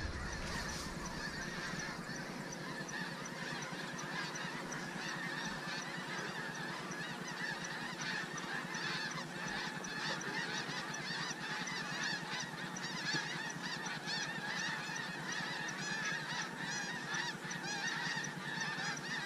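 Snow geese calling: many overlapping honks blending into a dense, steady chorus.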